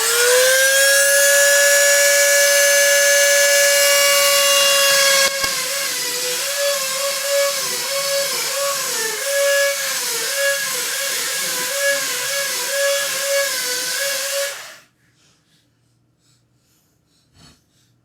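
Dremel-type rotary tool with a diamond bit, finishing its spin-up to a steady high whine and then grinding into the lock cylinder's housing, its pitch dipping again and again as the bit bites the metal. It switches off abruptly about fifteen seconds in. The tool is cutting away the punched retaining metal to free the cylinder.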